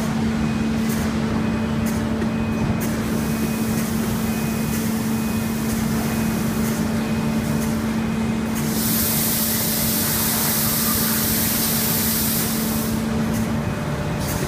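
Machinery of a foundry sand-core-making cell running with a steady hum. About nine seconds in, compressed air hisses for about four seconds, then stops.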